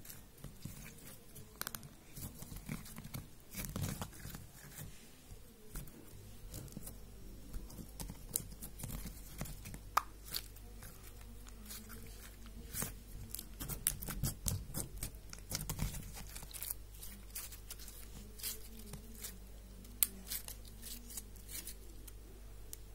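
Purple glitter slime being squeezed, stretched and kneaded by hand, making sticky crackling and clicking sounds, with a couple of sharper pops about ten and twenty seconds in.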